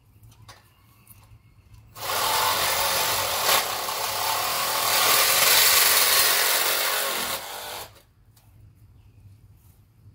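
Handheld cordless power tool running for about six seconds on a metal tent-frame tube, starting about two seconds in and cutting off shortly before the end.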